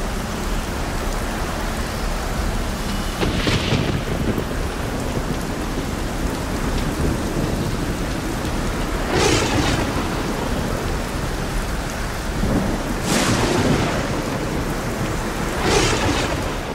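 Steady rain with four claps of thunder a few seconds apart, the last near the end.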